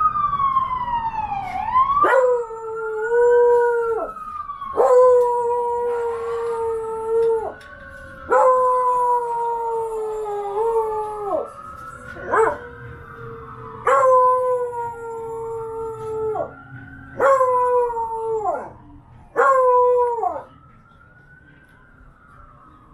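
A beagle howling at a wailing emergency siren: about eight long howls, each starting sharply and sliding down at the end, over a siren that slowly rises and falls in pitch. The howls stop shortly before the end while the siren goes on.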